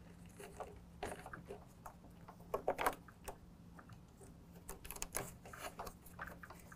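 Faint scattered clicks and rustles of hands working an LED headlight bulb's braided heat sink and wires into the plastic headlight housing, with small clusters of clicks about three seconds in and again around five seconds, over a faint steady low hum.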